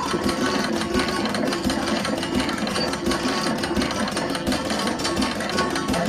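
Live percussion music accompanying a traditional dance: a fast, even beat with repeated low pitched notes over it.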